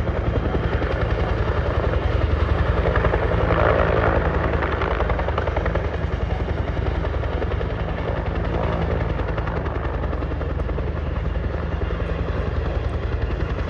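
Helicopter flying with a steady rotor beat, growing a little louder about four seconds in and then easing off.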